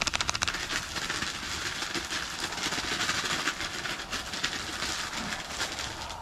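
Zip-top plastic bag crinkling and rustling steadily as fish fillets are shaken in it with dry fish-fry batter mix.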